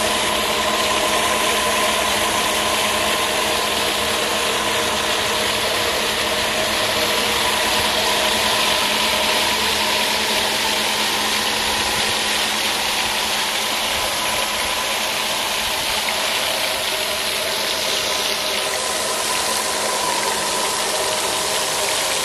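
Homemade water turbine running: a high-pressure water jet hisses and splashes onto the spinning bladed wheel, over a steady mechanical hum from the wheel, belt drive and generator as they turn at speed and generate electricity.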